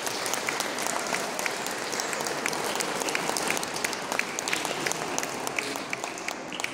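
Audience clapping and applauding, the applause dying away near the end.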